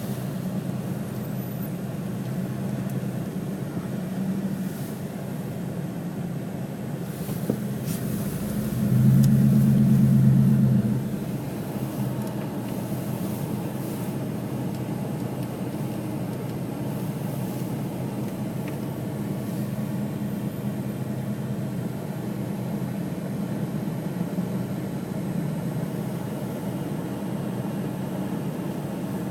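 Steady motor vehicle running, with a low hum and road noise. It swells louder for about two seconds roughly a third of the way in.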